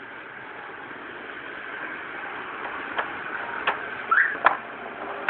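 Steady background traffic noise, with three sharp clicks in the second half and a brief rising squeak just before the last click.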